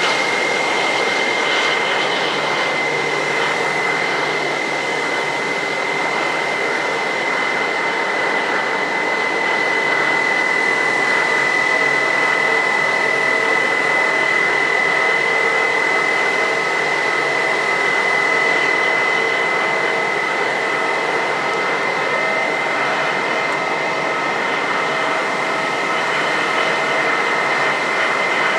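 Airbus A320's jet engines at idle while the airliner taxis in: a steady high whine over an even rushing noise.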